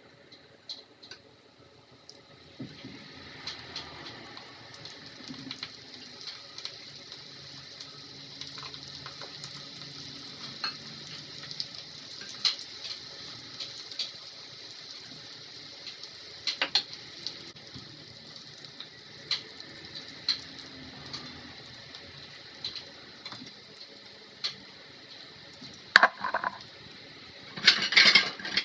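Battered onion rings deep-frying in hot oil in a wok: a steady crackling sizzle that starts a couple of seconds in as the rings go into the oil, with scattered pops. Near the end come a few loud clinks and clatters against the pan.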